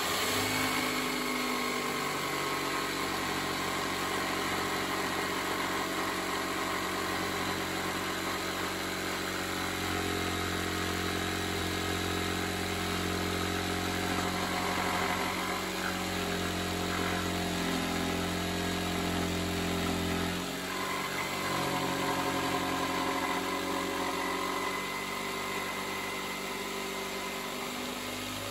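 Makita 4329 orbital-action jigsaw cutting a sink opening in a solid-wood worktop, running steadily throughout. Its motor note shifts about two-thirds of the way through.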